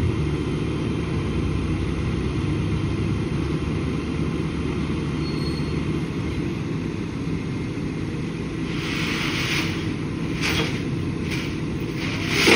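Rollback tow truck's engine running steadily as a low rumble, with several short hissing bursts in the last few seconds.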